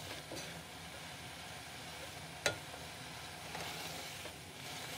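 Chicken pieces and ground spices sizzling in oil in a pot as a silicone spatula stirs and fries them, with one sharp tap about halfway through.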